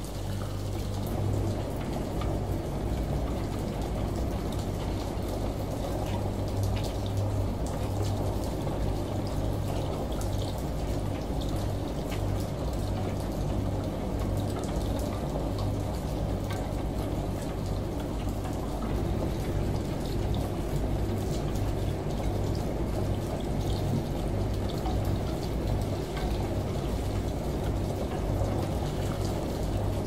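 Front-loading washing machine tumbling a load of laundry in the wash: water sloshing and splashing in the drum over a steady low hum.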